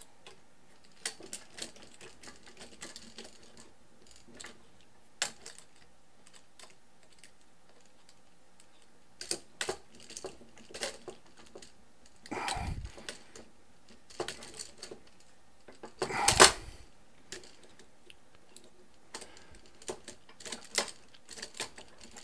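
Small screws being tightened with a hand screwdriver into a carbon-fibre quadcopter frame bracket: scattered light clicks and ticks of the driver and hardware in short clusters. Two louder knocks come about 12 and 16 seconds in, the second the loudest.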